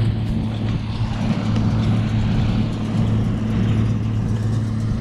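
Tractor engine running steadily at constant speed, a deep even hum.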